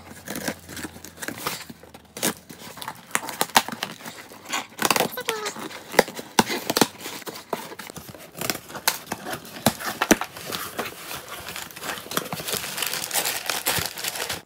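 A pen tip scraping and tearing through packing tape on a cardboard box, a run of scratchy rasps and clicks. Near the end the box is opened and the crumpled kraft packing paper inside rustles.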